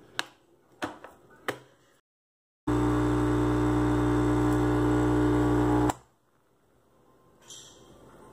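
Nescafé Dolce Gusto capsule coffee machine: three light clicks as the machine is handled, then its pump runs with a loud, steady buzzing hum for about three seconds while dispensing a milk coffee into a mug, and cuts off suddenly.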